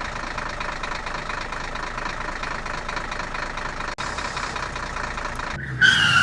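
Steady engine idling sound, matching a toy tractor's engine sound effect, with a brief cut about four seconds in. Near the end a louder, falling, whistle-like tone comes in.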